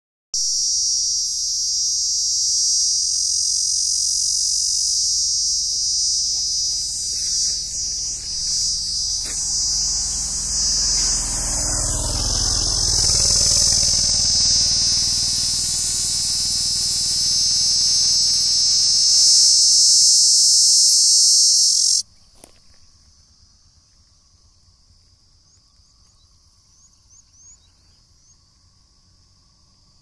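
Cicada singing: a loud, steady, high-pitched shrill that cuts off suddenly about 22 seconds in, leaving only a faint insect call. A low rumble rises and fades midway.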